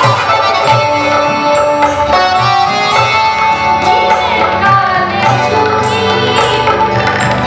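Live Maithili folk music: tabla keeping a regular beat under harmonium and a plucked string instrument.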